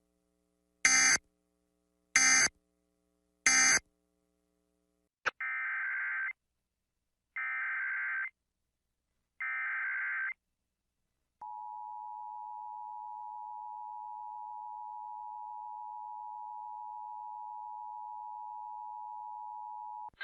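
Emergency Alert System data bursts and attention signal between alerts: three short screeching bursts, the end-of-message code closing the previous warning, then three one-second buzzing SAME header bursts announcing the next warning, then the steady two-tone attention signal from about 11 seconds in.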